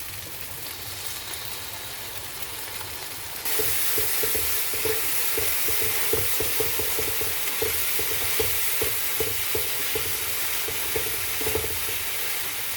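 Onion, tomato and chili-paste masala frying in oil in a pan, with soy sauce just added, sizzling steadily while a spoon stirs and scrapes against the pan. About three and a half seconds in, the sizzle turns suddenly louder, and rapid stirring strokes follow.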